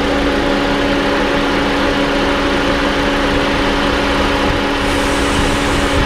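Toyota Voxy's 2.0-litre four-cylinder engine idling steadily with the air conditioning running, heard close up in the open engine bay. A faint high hiss comes in near the end.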